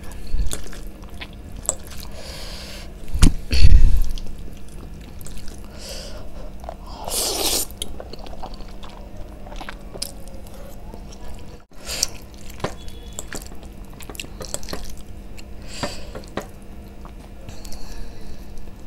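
Close-miked eating of spicy Korean noodles: wet chewing, mouth clicks and short slurps of noodles, with a loud low thump about three to four seconds in.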